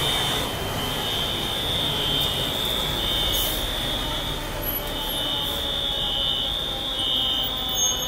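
Building fire alarm sounding a high, steady buzzing tone in long blasts, with short breaks near the start and near the end and a longer pause of about a second midway.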